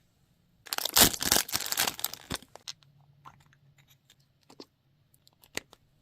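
A burst of crackly tearing or crunching for about a second and a half, then scattered small clicks and taps.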